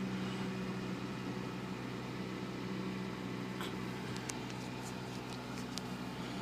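Toyota Corolla 1.8-litre four-cylinder engine idling steadily, with a few light clicks in the second half. The engine has logged misfires on all four cylinders (codes P0300–P0304).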